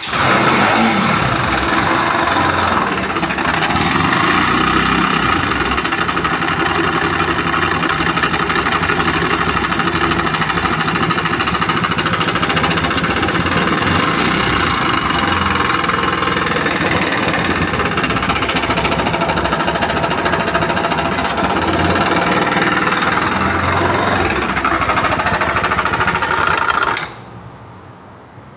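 Bajaj Pulsar NS200's single-cylinder engine running steadily with a noise the owner calls bad, pointing to a mechanical fault. The sound stops suddenly near the end.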